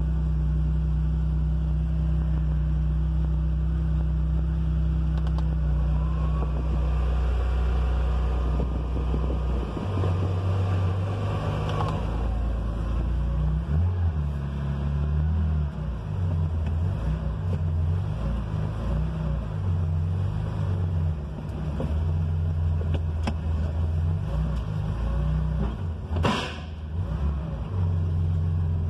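A 1973 Porsche 911S's 2.4-litre air-cooled flat-six on Weber carburettors idling as it warms up after a cold start. Its low note is steady at first, then turns uneven about halfway through. A short sharp sound comes near the end.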